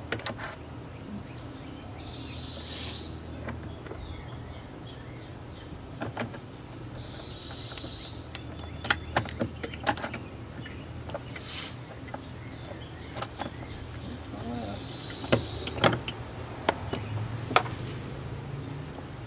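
Scattered clicks and knocks of hand-work on the door, fitting trim parts and starting screws during reassembly. A bird chirps three times in the background.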